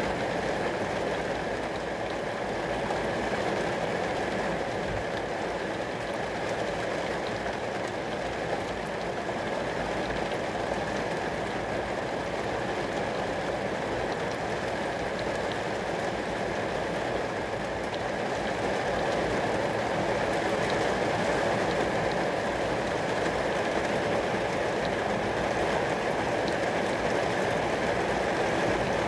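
Steady rain falling onto glass, an even, unbroken hiss.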